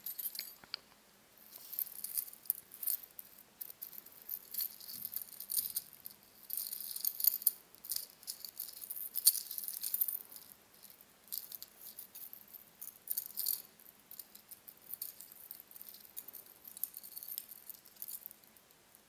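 Silver jewellery chains and small metal pieces jingling and clinking as a hand sorts through a tangled heap of them, on and off with short pauses.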